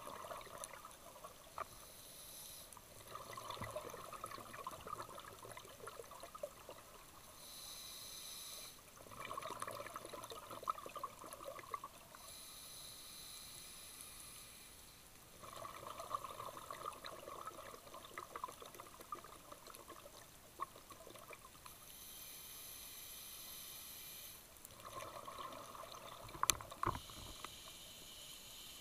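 Scuba breathing heard through an underwater camera: a hiss from the regulator on each inhale, then a long stream of bubbling exhaled air, repeating slowly about five times. A couple of sharp clicks near the end.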